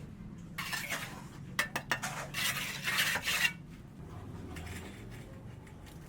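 Scraping and clinking of hard objects, several sharp clicks among rough scrapes for about three seconds, then quieter.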